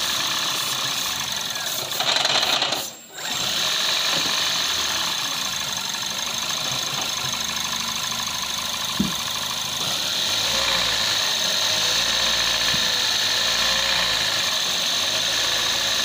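Toyota Aqua (Prius C) hybrid's 1.5-litre four-cylinder petrol engine idling roughly with a rattle. The rough idle comes from a lean mixture (code P0171), from unmetered air drawn in through a vacuum leak. There is a short louder hiss about two seconds in.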